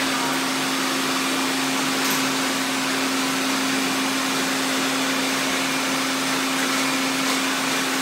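A group of robot vacuums running at once, iRobot Roombas among them: a steady whir and hiss of many motors and brushes, with a constant low hum.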